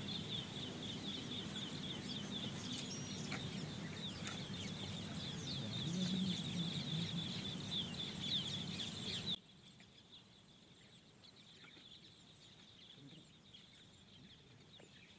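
Outdoor ambience of birds calling over a steady high chirring. About nine seconds in the whole sound drops sharply to a faint version of itself.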